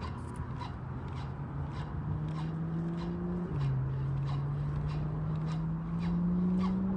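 Daiwa BG 3000 spinning reel being cranked to retrieve a lure, giving an even ticking of about two to three clicks a second. Under it runs a steady low drone that slowly rises in pitch and drops suddenly about three and a half seconds in.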